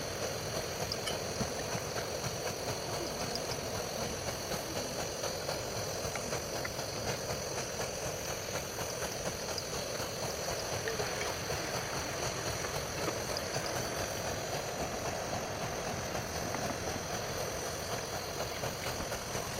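Camping stove burner running with a steady, even rushing hiss.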